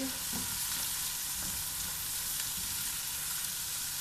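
Chopped vegetables sizzling steadily as they fry in ghee in a nonstick pot, stirred with a silicone spatula.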